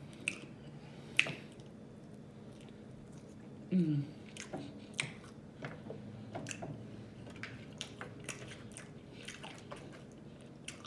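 Close-miked chewing of fast food: wet mouth clicks and smacks scattered throughout, with one louder click about a second in and a brief falling vocal sound about four seconds in.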